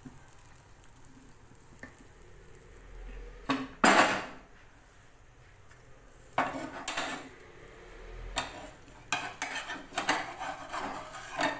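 Metal pots and kitchen utensils clattering on the stovetop: one loud clank about four seconds in, then a run of shorter knocks and rattles through the second half.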